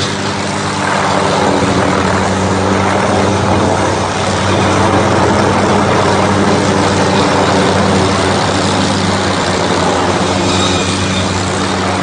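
Tree-cutting machine with its heavy engine running steadily. A harsher, louder layer of noise comes in about a second in and eases slightly near the end.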